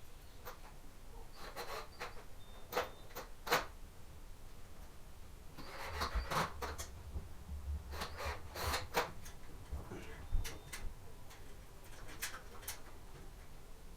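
Scattered clicks, knocks and rubbing of hands and tools working on a uPVC door's lock mechanism while its gearbox is being replaced, with small clusters of clicks near the middle and a sharper knock a little after.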